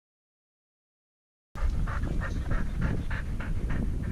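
Pointing dog panting hard and fast, about four breaths a second, starting after a second and a half of dead silence.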